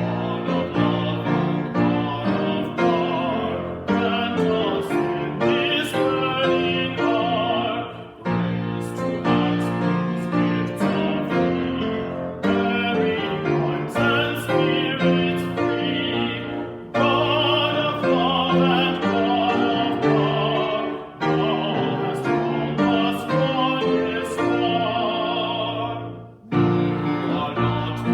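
A singing voice with vibrato over piano accompaniment, in phrases a few seconds long with short breaths between them.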